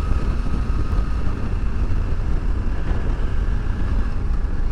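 Motorcycle riding at motorway speed: steady wind noise on the microphone over engine and road noise, with a faint steady whine in the first second or so.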